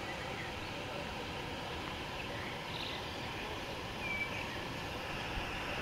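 Steady rush of a shallow stream flowing over stones, with a few faint short bird chirps about three and four seconds in.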